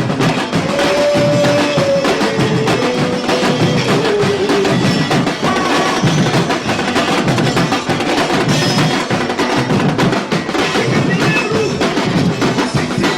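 Afro-Brazilian percussion ensemble playing a dense, steady batuque groove on drums and other hand percussion, with no break.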